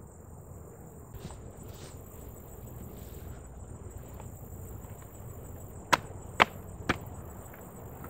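Three sharp cracks about half a second apart, a little after halfway, as a metal hive tool pries at a wooden hive box stuck down with propolis. A steady high-pitched insect sound carries on behind.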